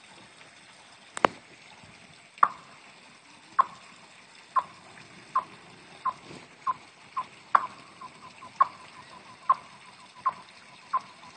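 Golf balls hitting and skipping across thin pond ice, each hit giving a short ringing ping from the ice sheet. A sharp first impact about a second in, then about a dozen pings that come faster toward the end.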